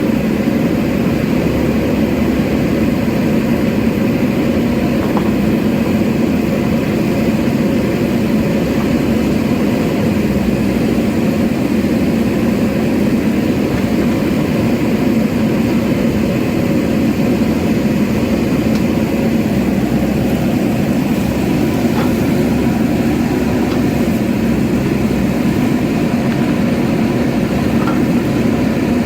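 JCB backhoe loader's diesel engine running steadily under load, with a few faint clicks.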